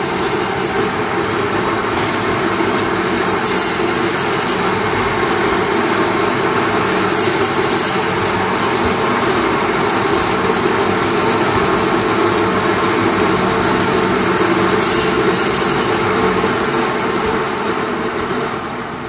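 Meat band saw running steadily, its blade cutting a lamb forequarter into chops. The sound dies away near the end.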